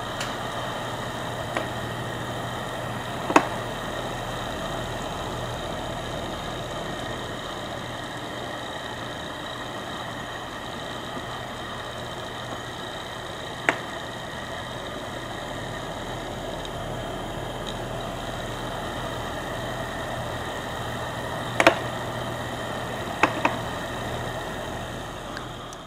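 Iris Ohyama ENC-23K circulator fan running with a steady hum as it oscillates, broken by sharp "katan" clicks each time the head turns at the end of its sweep. There are about six clicks, the loudest a few seconds in and a close pair near the end. The click is an abnormal noise: a defect in the oscillation mechanism of a unit only a month old.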